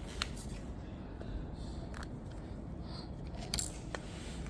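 Plastic Lego bricks clicking and rattling as pieces are handled and pressed together: a few separate sharp clicks, the loudest about three and a half seconds in, over a low steady hum.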